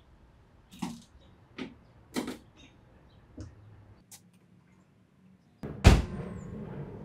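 Light plastic clicks and knocks as trim and a rubber seal are pressed into place at the front of a 2018 Mazda MX-5 Miata. About six seconds in, one loud thud with a ringing tail as the hood is shut.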